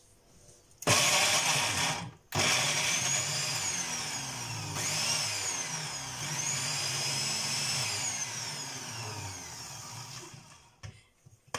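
Countertop blender pureeing chunks of fresh mango: a short run of about a second, a brief stop, then a long run of about eight seconds with a whine that rises and falls, easing off before it cuts out near the end.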